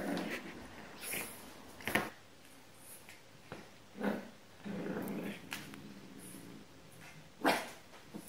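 Puppy giving a run of short yaps and growls, about half a dozen over the stretch, with one longer growl about five seconds in and the loudest yap near the end.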